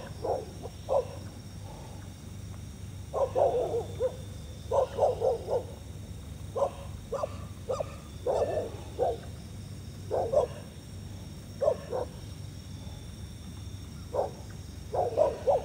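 A dog barking repeatedly, in short single barks and quick runs of two or three, spaced unevenly and not very loud.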